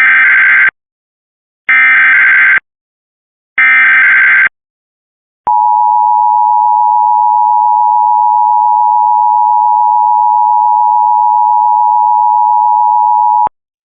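Emergency Alert System Required Weekly Test signal: three bursts of SAME header data, a buzzy digital screech about a second each with a second's gap between them, the first already under way. Then the steady EAS two-tone attention signal sounds for about eight seconds and cuts off suddenly.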